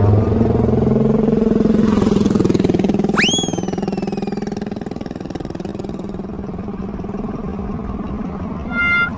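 Small motorcycle engine running steadily along the road, with a fine rapid firing pulse. About three seconds in, a sharp whistle-like tone shoots up and then slowly falls away, and near the end flute-like music begins.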